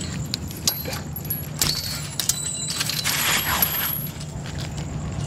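A metal chain and lock on a chain-link gate being handled, rattling and clinking in short, irregular clicks with a busier clatter about three seconds in, over a steady low hum.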